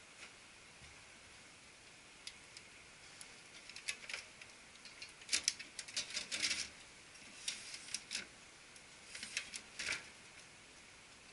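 Scattered plastic clicks and knocks as the image transfer belt unit of a Konica Minolta bizhub C252 copier is gripped and slid out of the machine. The clicks come in small clusters, busiest in the middle and again near the end.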